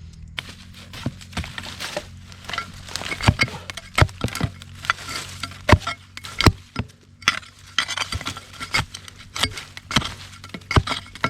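A digging tool striking into soil and plant roots: a run of irregular sharp strikes and crackles, one or two a second, as a wild herb's roots are dug out.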